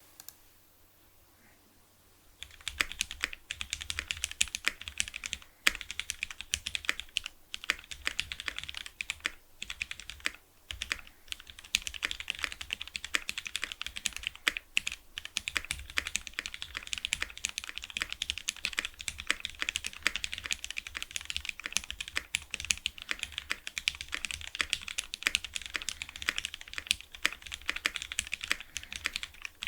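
Continuous fast typing on a Keycult No. 1/65 custom mechanical keyboard with lubed, filmed Cherry MX Black linear switches on an aluminum plate and GMK keycaps. It starts about two seconds in and runs on with a few short pauses.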